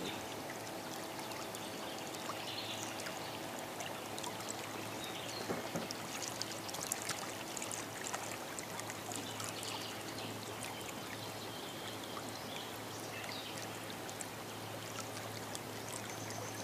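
Steady water noise from small waves around a fishing boat, with a low steady hum underneath and a few faint clicks scattered through.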